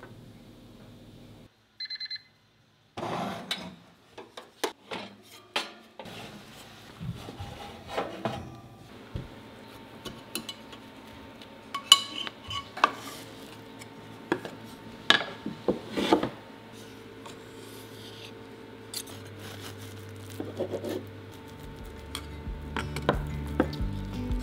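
Countertop oven's timer beeping briefly about two seconds in. Then kitchen clatter: a ceramic loaf dish being handled with sharp knocks and clicks, and a knife scraping along the inside edge of the dish to loosen the baked loaf.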